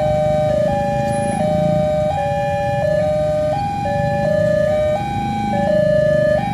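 Railway level-crossing warning siren alternating between a higher and a lower tone in an uneven rhythm: the switches come at irregular intervals, roughly every half second to a second, instead of a steady beat. A low rumble runs underneath.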